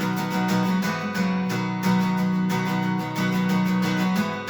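Acoustic guitar strummed with a plectrum in a steady, quick rhythm, several strokes a second over a held chord.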